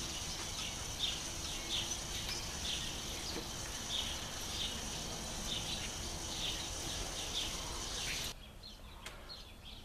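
Short, repeated bird-like chirps, about one or two a second, over a steady hiss. The hiss drops away suddenly near the end, leaving fainter chirps.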